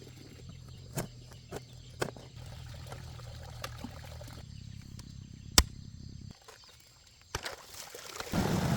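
Water trickling and pouring, with a few sharp knocks, the loudest about halfway through. Near the end a louder, steady rush of running water starts.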